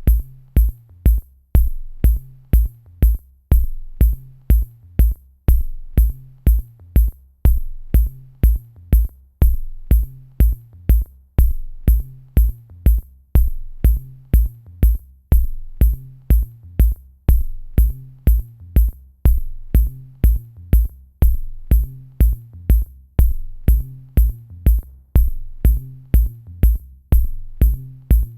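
Electronic background music with a steady drum-machine beat: a low kick and a bass line under regular high hi-hat ticks.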